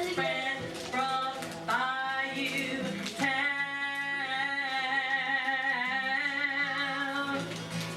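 Singing with backing music: short sung phrases, then one long held note from about three seconds in until near the end.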